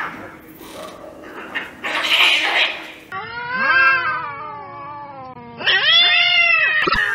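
Cats fighting: hissing in a face-off, then, after a cut, two long, wavering caterwauling yowls, the second higher than the first.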